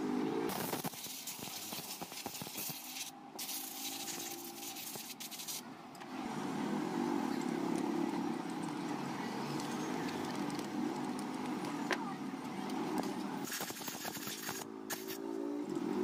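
Faint steady low hum from about six seconds in, with occasional light clicks and taps of metal parts and a spanner being handled on the compressor head.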